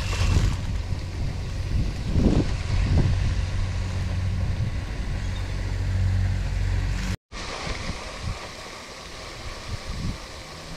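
Wind buffeting the microphone: a steady low rumble that cuts off abruptly about seven seconds in. A quieter stretch follows, with a few small clicks and knocks.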